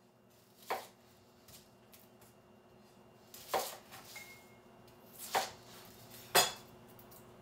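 Kitchen knife cutting an onion and knocking on a wooden cutting board: one sharp knock about a second in, then three more over the last four seconds, the last the loudest.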